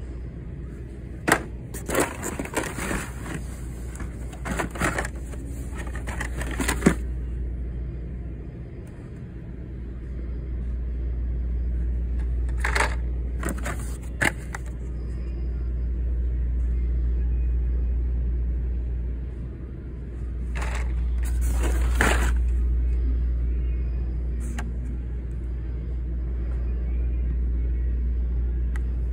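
Crinkling and clicking of plastic blister-packed toy car cards and cardboard being handled in an open shipping case. It comes in short clusters at the start, again around halfway and about two-thirds through, over a steady low rumble.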